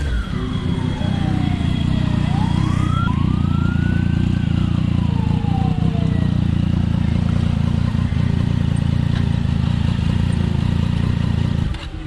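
Motorcycle engine idling close by, a steady low rumble that drops away just before the end. Over the first half, a siren wails in slow rising-and-falling sweeps.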